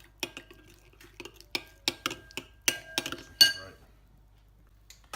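A spoon clinking against a bowl while a thick sauce is stirred: about a dozen short, irregular clinks over the first three and a half seconds, then they stop.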